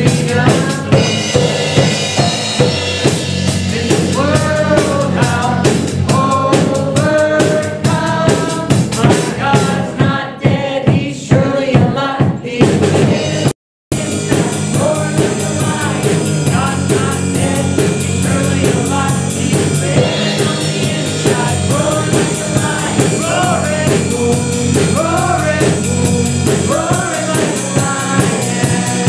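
Live contemporary worship band playing a song: drum kit, bass and electric guitar, with a woman and a man singing lead into microphones. The sound cuts out for a split second about halfway through.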